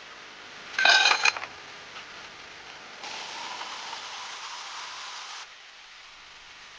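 Metal cookware and utensils clattering, with a brief loud ringing clink about a second in. It is followed by a steady hiss lasting about two and a half seconds that cuts off suddenly.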